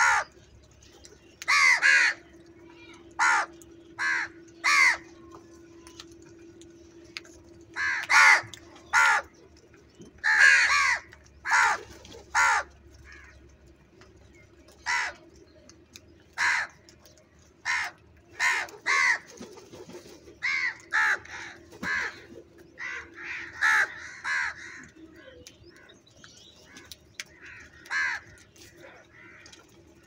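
A flock of house crows cawing: many short, harsh caws from several birds, some single and some in quick runs, coming thicker and overlapping in the second half.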